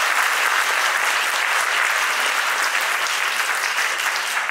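Audience applauding: a steady, dense clapping throughout.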